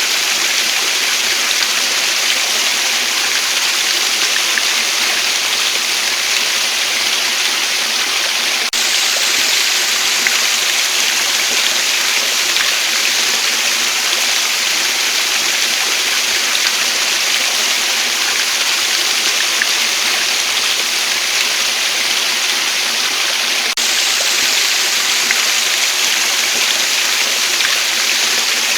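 Waterfall: a loud, steady rush of falling water, an even hiss with no rhythm, its brightest top edge shifting abruptly twice.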